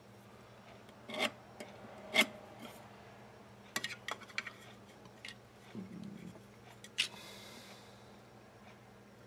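Metal straightedge, square and pen being handled on a workbench: a few sharp clicks and knocks, a short scraping rub about six seconds in, and a light metallic ring after a knock about seven seconds in.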